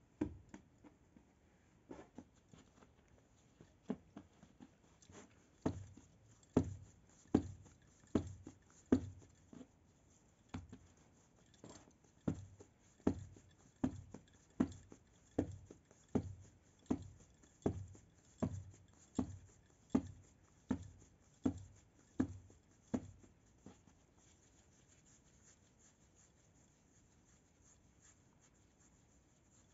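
Hands working bread dough into balls on a flour-dusted surface: a regular run of dull thuds, a little more than one a second, as each lump is pressed and turned. The thuds stop a few seconds before the end.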